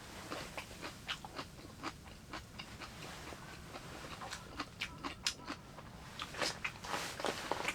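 A person eating at close range: chewing and biting, with a string of short clicks and taps.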